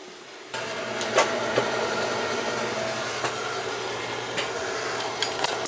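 Water starting to flow through the house's copper supply pipes as the taps upstairs are opened to bleed out air. It sets up a steady hum in the plumbing that begins suddenly about half a second in, with a few light clicks and knocks.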